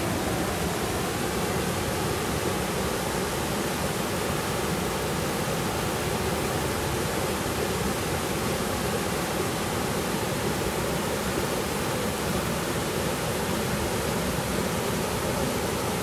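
Small waterfall pouring over a rock ledge into a shallow pool, a steady, even rush of falling and splashing water.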